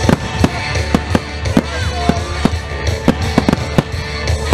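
Aerial fireworks shells bursting one after another, about two or three loud bangs a second, over music playing through loudspeakers.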